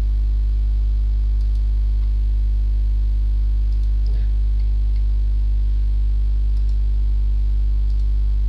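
Steady electrical mains hum: a low, unchanging buzz with a ladder of evenly spaced overtones, with a faint brief sound about four seconds in.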